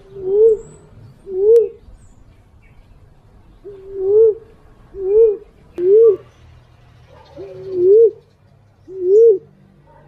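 Female walik fruit dove cooing: seven hooting notes, each rising then falling. Some notes have a short level lead-in. Two notes come close together, then after a pause of about two seconds the rest follow about a second apart.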